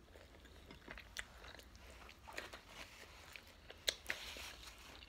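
Faint close-up chewing of a mouthful of burrito, with a few sharp wet mouth clicks scattered through it.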